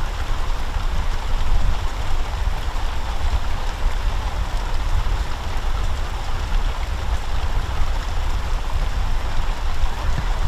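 Steady rushing noise with a heavy low rumble that varies a little in strength.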